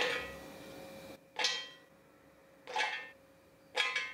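Soaked raw groundnuts dropped by the handful into a stainless steel blender jar: three short clattering hits, each leaving the metal jar ringing briefly.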